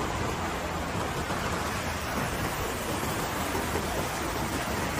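Hennops River rushing over rocky rapids and a small weir: a steady, even sound of churning white water.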